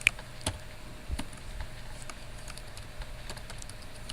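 Computer keyboard typing: scattered, irregular keystrokes, the first one at the very start the loudest.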